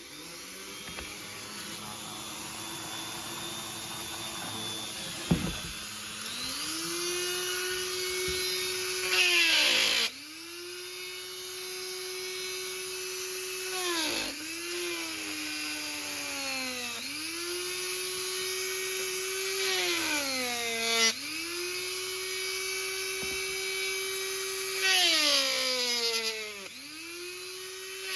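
A small electric power tool is switched on and off again and again. Each time its motor whines up to speed, holds a steady pitch for a few seconds and winds down, about six times. There are two louder stretches of noise as it works.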